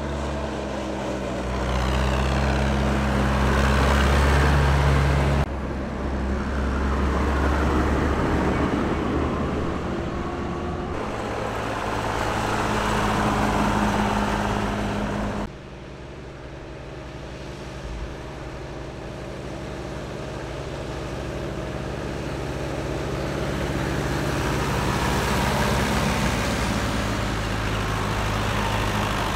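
Tractor engines running as tractors drive past one after another, the sound swelling and fading with each pass. It breaks off and changes abruptly three times where separate takes are joined.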